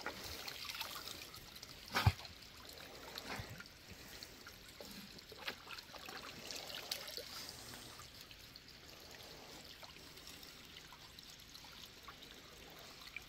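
Faint trickling water, with a sharp short knock about two seconds in.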